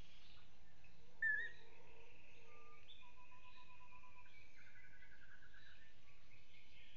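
Several wild birds calling off-camera: a short, sharp call a little over a second in is the loudest, a fast trill follows around the middle, and other thin whistled calls come and go against a faint steady hiss.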